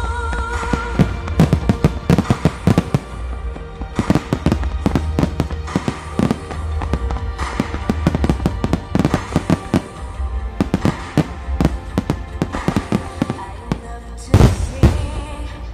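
Aerial firework shells bursting in rapid succession, many sharp reports one after another, over music playing with the display. The loudest cluster of bursts comes near the end.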